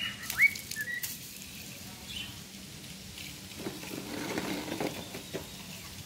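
Cockatiels whistling: several short rising whistles in the first second, with a few light clicks, then quieter chirps over a soft rustle.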